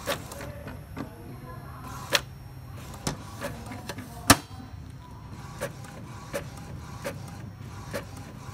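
Epson ink-tank inkjet printer making a colour copy: its print-head carriage shuttles with a low running hum and a click or knock about once a second. The hum stops with the loudest knock about four seconds in, and the clicks go on at a steady pace as the page feeds out.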